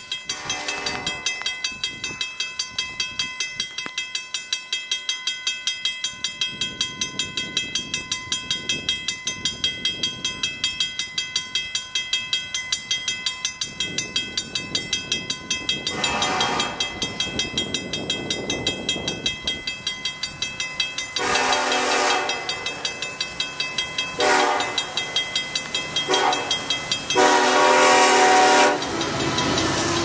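Level-crossing bell ringing in quick, even strokes as a CN freight approaches. The lead EMD SD70M-2 locomotive's air horn sounds long, long, short, long, the standard grade-crossing signal, each blast louder as it nears. Near the end the locomotive passes close by.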